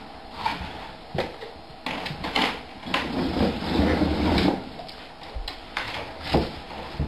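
Steel dog food bowls knocking and clanking on a wooden floor: several sharp single knocks, with a louder stretch of clatter in the middle.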